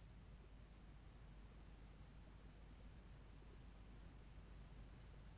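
Near silence with a few computer mouse clicks: a sharp one at the start, a faint one about three seconds in, and another about five seconds in.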